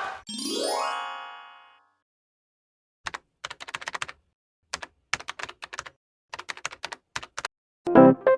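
An edited sound-effect sequence. A rising pitched glide fades out, then after a short silence comes a run of quick keyboard-typing clicks, and an electric-piano tune begins near the end.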